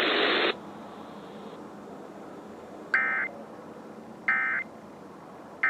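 A burst of hiss cuts off about half a second in. Then three short bursts of warbling data tone, evenly spaced, sound about a second and a half apart: the Emergency Alert System's SAME end-of-message code, sent three times to close the test.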